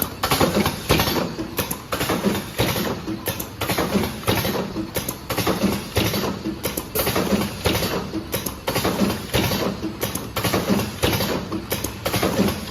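Automatic cartoning machine running, a steady fast clatter of many overlapping mechanical clicks and knocks.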